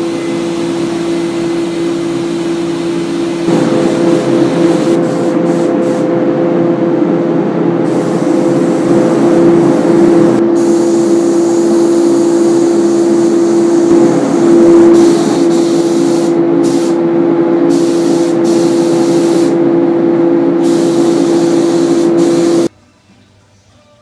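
Gravity-feed paint spray gun spraying on compressed air: a loud steady hiss over a steady low hum, the high part of the hiss stopping and starting several times as the spray is shut off and resumed. It cuts off abruptly about a second before the end.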